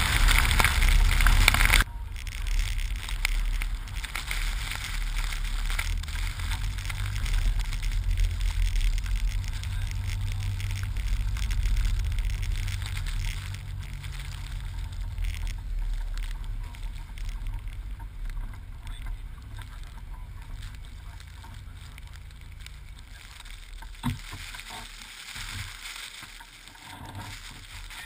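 Jeep Wrangler driving slowly through snow: a low, steady engine rumble with wind noise on the microphone, heard from outside the vehicle. A loud rushing in the first two seconds stops abruptly, and the rumble fades gradually, with a single knock near the end.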